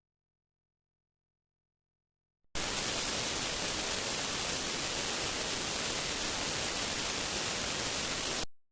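Static hiss like an untuned television: a steady, even noise, brightest in the highs, that starts suddenly about two and a half seconds in and cuts off sharply near the end.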